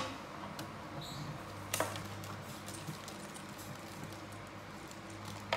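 Faint clicks and light handling noise from small plastic toy parts, with one sharper click about two seconds in, over a steady low hum.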